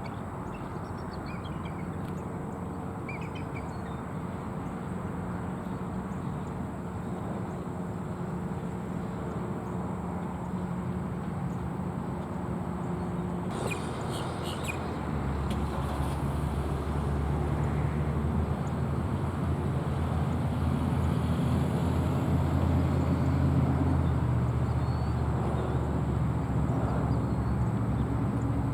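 Steady low hum of vehicle traffic, growing louder from about halfway through. A few faint high bald eagle calls sound in the first few seconds.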